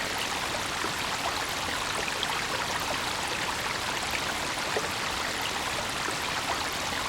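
Brook water running steadily over stones, a continuous splashing rush with small droplet splashes scattered through it.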